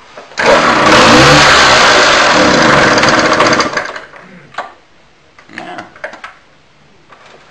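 Victoria Vicky IV moped's small two-stroke engine running loud and close for about three seconds, starting abruptly and then stopping suddenly.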